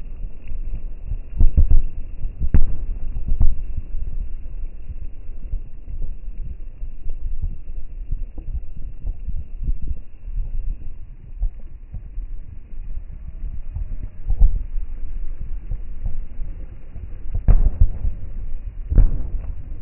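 Fireworks bursting: an irregular run of dull, low booms over a constant low rumble, with the sharpest bangs a couple of seconds in and twice near the end.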